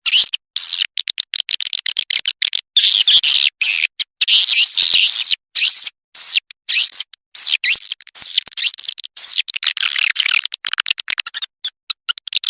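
Recorded edible-nest swiftlet calls: fast, high twittering chirps and rapid clicks in quick runs broken by many short gaps. This is a swiftlet lure call, played to draw swiftlets in to roost.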